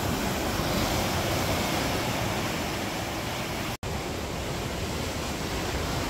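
Sea surf breaking and washing over shoreline rocks, a steady rush of water. It drops out for an instant a little under four seconds in, and a similar steady rush follows.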